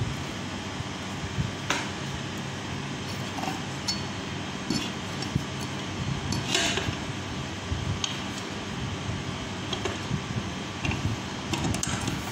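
Aluminium lever citrus press being worked by hand: scattered clicks, knocks and a short scrape as citrus halves go in and the press cone comes down on them. A steady background hum runs underneath.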